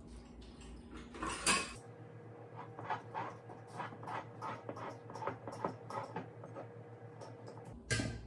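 Corkscrew being worked into a broken cork stuck in the neck of a wine bottle: one sharper click about a second and a half in, then a run of short creaks, about two or three a second.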